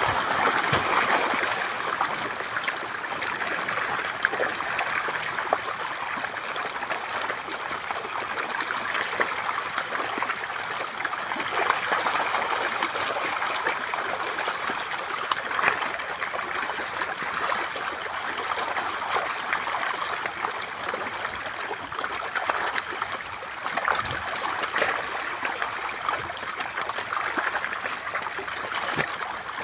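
A dense school of small fish thrashing and splashing in shallow water, a continuous churning patter of many small splashes.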